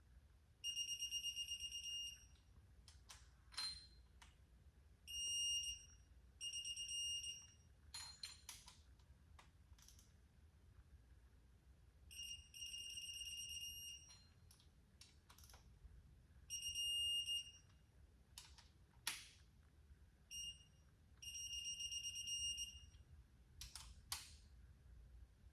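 Torque wrench beeping: long, high-pitched beeps at uneven intervals as each cylinder-head bolt reaches its first torque stage of 30 ft-lb, with sharp clicks and knocks of the wrench between beeps.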